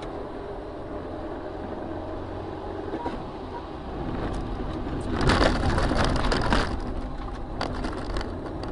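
Steady low vehicle rumble, then about five seconds in a road collision: a loud crunching, crashing stretch lasting a second or two, followed by a few scattered knocks near the end.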